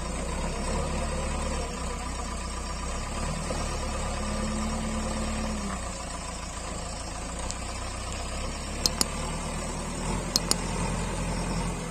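JCB backhoe loader's diesel engine running steadily. Two pairs of sharp clicks come near the end.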